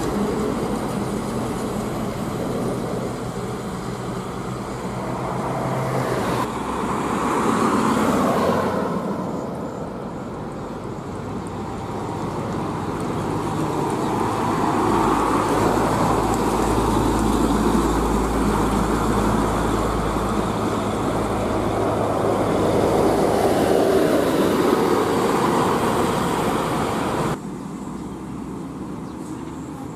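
Heavy diesel trucks and cars passing on a busy road: engine drone and tyre noise that swells as each vehicle goes by, several times. Near the end it drops suddenly to a quieter traffic hum.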